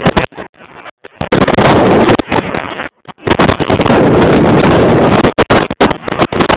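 Loud wind buffeting the microphone in flight: a rushing roar that comes and goes in choppy gusts, dropping out briefly about three seconds in.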